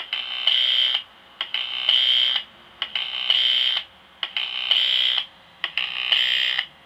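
A Dell LCD monitor's power supply and backlight inverter board, heard as a high electrical buzz through an inductive pickup coil and small amplifier. It comes in bursts about a second long, five times, about every one and a half seconds, as the set starts up and shuts itself down again. Its protection is tripping on a backlight-drive fault, which the repairman traces to the output transformer or the transistors driving it.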